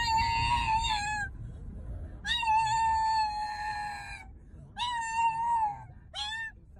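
A pug whining in four high, drawn-out cries, the first two lasting one to two seconds each and the last one short, each dropping a little in pitch at the end.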